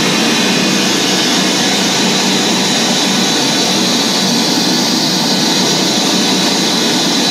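Live electronic noise music from keyboards and electronics: a dense, steady wall of noise with a low drone and a held high tone, even in level throughout.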